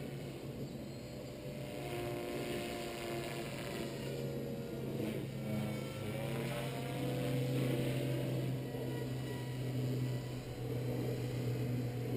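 Walkera V450D01 electric RC helicopter flying overhead: the whine of its brushless motor and rotor, rising and falling in pitch as it moves through its manoeuvres.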